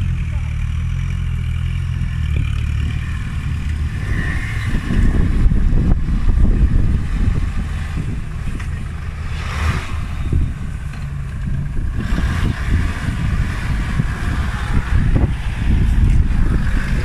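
Off-road 4x4 vehicle's engine running and revving up and down under load as it crawls over rocks, getting louder about five seconds in and again near the end.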